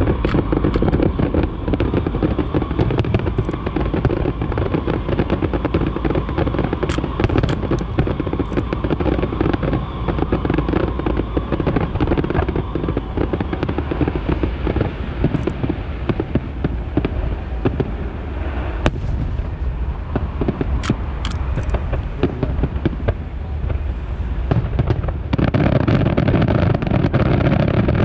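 Aerial fireworks show: a continuous barrage of shell bursts and crackle, with no gaps between the bangs. About 25 seconds in the barrage grows louder and heavier as more shells go off together.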